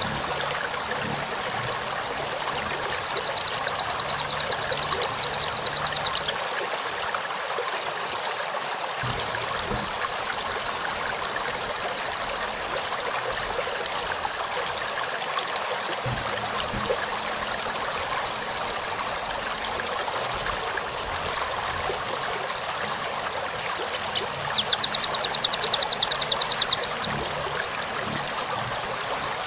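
Velvet-fronted nuthatch (rambatan) song played as a tutor recording: fast, high trills a few seconds long, broken by short sharp single notes and brief pauses. Under it runs a steady hiss like running water.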